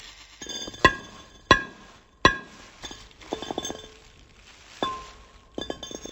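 Glass clinking: three loud, sharp strikes in the first two and a half seconds, each leaving a short bright ring, then lighter rattling clinks and one more ringing strike near the end.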